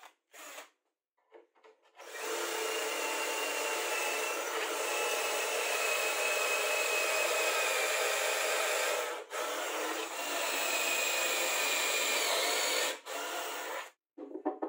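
Cordless drill boring into a clamped block of wood, the motor whining steadily under load with shavings grinding out, stopping briefly twice. A few light handling knocks before and after.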